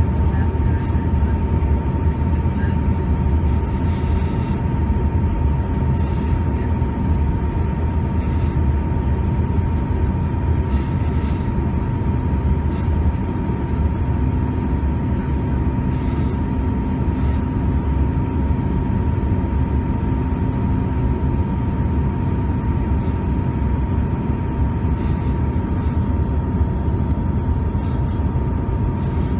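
Steady cabin noise of a Bombardier CRJ-200 regional jet in flight: a deep, even rush of airflow and the drone of its two rear-mounted GE CF34 turbofans, with one constant whine-like tone running over it.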